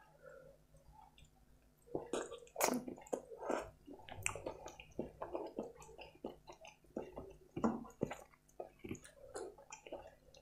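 Close-miked wet chewing and lip-smacking of a mouthful of butter chicken and rice: a rapid, uneven run of squishy clicks and smacks starting about two seconds in.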